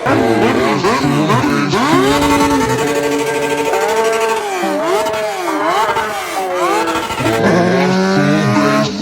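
Motorcycle engines revving, the pitch climbing and dropping again and again with several overlapping; the sound changes about seven and a half seconds in.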